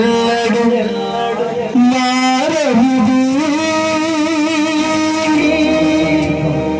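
A man singing a Telugu Christian devotional song into a microphone over instrumental accompaniment, holding long notes with vibrato.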